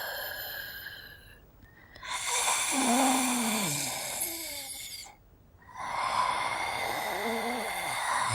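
Female zombie vocal effects: a raspy, breathy moan that falls in pitch, a gap of about a second, then a second raspy moan.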